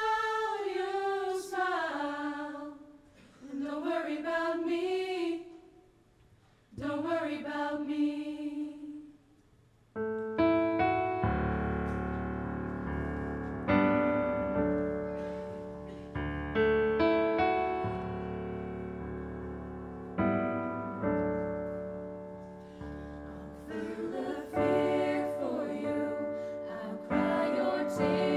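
A woman sings a few phrases alone, without accompaniment, with short pauses between them. About ten seconds in, piano chords come in, struck every couple of seconds and left to ring out, and the voice comes back over them near the end.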